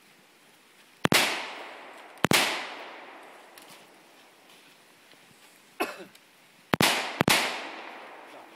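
Carbine gunshots in a practical shooting stage. There are single shots about one and two seconds in, a weaker crack near six seconds, and a quick pair of shots about half a second apart near the end. Each shot trails off in a decaying echo.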